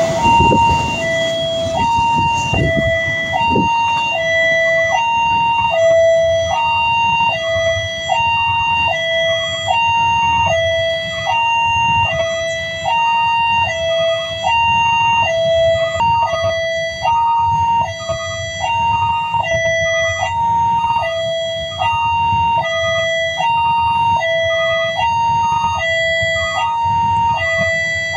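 Railway level-crossing warning alarm sounding a steady electronic two-tone hi-lo signal, the two tones alternating about every 0.7 seconds without a break. Beneath it a low rumble of idling road traffic, with a few clunks early on.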